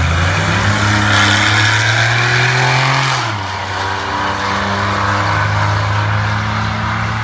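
A car engine running close by, its pitch climbing slowly for about three seconds, dropping sharply, then holding steady.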